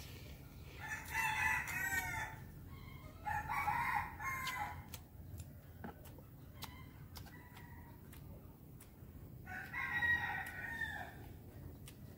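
Rooster crowing three times, each crow one to two seconds long, with faint short clicks in between.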